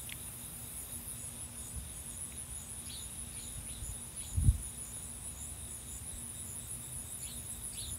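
Steady high-pitched trilling of insects, with a few faint short chirps now and then and one brief low thump about halfway through.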